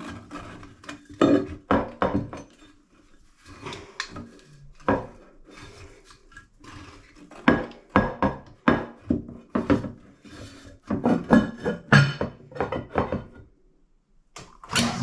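Metal shower hose and fittings being handled and fastened by hand: a run of separate sharp clinks and knocks, with a short lull near the end.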